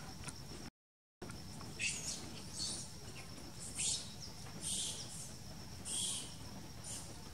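Six short, shrill, high-pitched animal calls spread over several seconds, the first sweeping upward, over a faint steady high tone and low rumble. The sound drops out completely for about half a second near the start.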